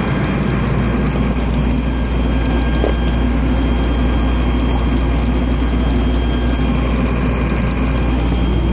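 An engine running steadily: a loud, even low rumble with a faint high whine over it and no change in speed.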